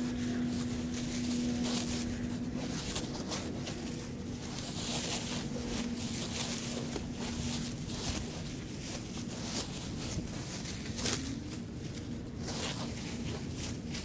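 Clear plastic stretch wrap crinkling and rasping in irregular bursts as it is pulled and peeled off a wrapped engine block. A steady low hum runs under it and fades out about halfway through.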